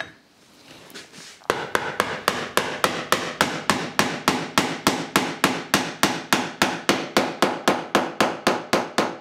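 Soft-faced mallet tapping a wooden planing-stop block down into its snug-fitting mortise in a workbench top: a rapid, even run of sharp knocks, about four a second, starting about a second and a half in after a couple of lighter taps.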